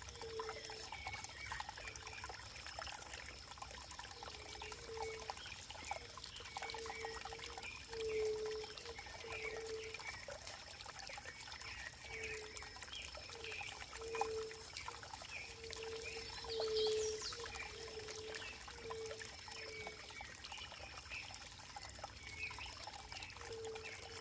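Running water trickling and pouring, with a string of short pitched gurgles recurring irregularly every second or so.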